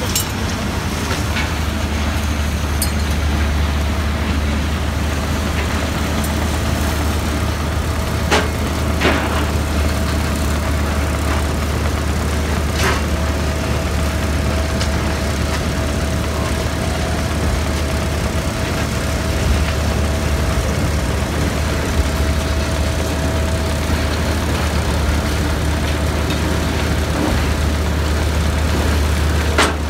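Heavy recycling machinery running steadily: the Ecohog ECS 2000 eddy current separator and its conveyors sorting ferrous and non-ferrous metal out of shredded wood. There is a deep engine hum, a steady whine over it, and a few sharp clicks.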